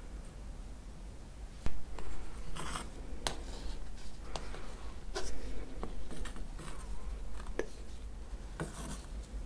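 Damp rice flour being crumbled by hand, then spread and levelled with a plastic bench scraper inside a stainless steel cake ring: a string of short scrapes and sharp clicks. The loudest click comes a little under two seconds in.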